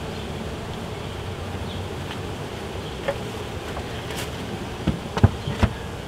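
Honeybees buzzing steadily around a freshly closed hive. Near the end come a few sharp knocks as the metal outer cover is set on the hive.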